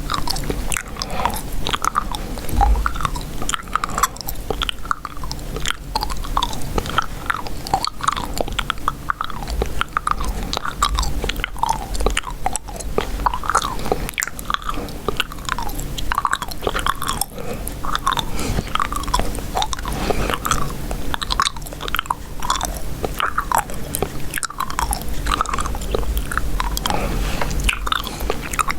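Chewing gum chewed close to the microphone: continuous wet smacking and clicking of the mouth, several small snaps a second, with no pauses.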